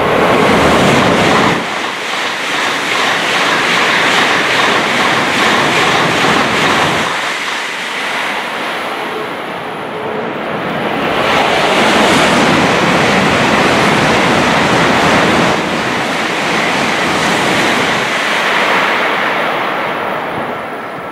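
Tokaido Shinkansen bullet trains passing through the station at speed: a loud, steady rush of air and wheel noise that eases a little and swells again about eleven seconds in.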